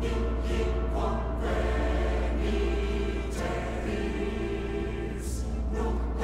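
Choral music: a choir singing held chords over a steady deep bass.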